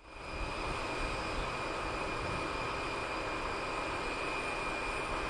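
Beechcraft 400A (Beechjet) business jet on approach, its twin Pratt & Whitney JT15D turbofans making a steady high-pitched whine over a low rumble.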